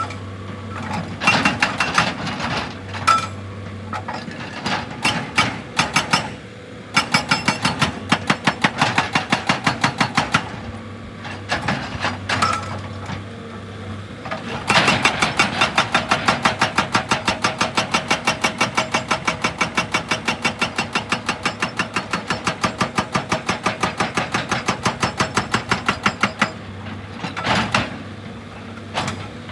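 Heavy machinery's percussive hammer striking rock in rapid, evenly spaced blows, several a second, over a steady engine hum. The hammering comes in short runs, and then in one long run of about twelve seconds starting about halfway through.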